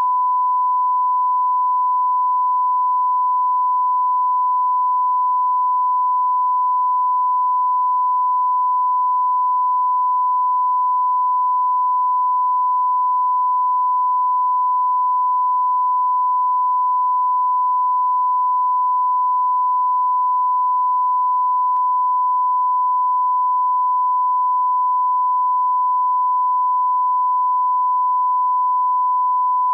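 Steady 1 kHz line-up tone, one unbroken pitch at a constant level: the audio reference tone that accompanies colour bars at the head of a broadcast tape, used to set audio levels.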